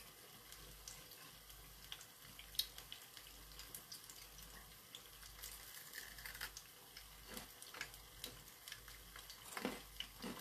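Faint sizzling and crackling of sweet potato deep-frying in oil, with scattered sharp ticks.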